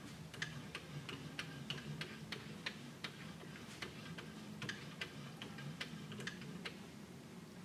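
Light, fairly even clicking, about three clicks a second, from a cleaning rod being worked back and forth inside a rifle barrel to scrub a wet patch through the bore, with a faint low hum underneath.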